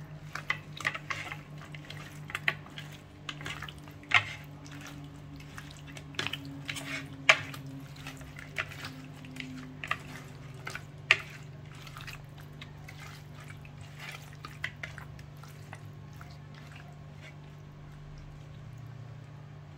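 Wet squelches and sticky clicks of a hand kneading spice marinade into small whole fish on a plate, irregular and thinning out toward the end. A steady low hum runs underneath.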